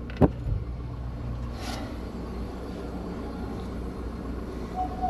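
Steady low mechanical hum from a walk-in cooler's condensing unit, with one sharp click about a quarter second in. The compressor is not running, which the technician puts down to the compressor itself, now hot.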